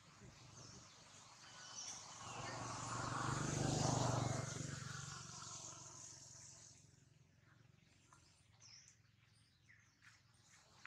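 A motor vehicle passing by: its engine sound swells to a peak about four seconds in, then fades away.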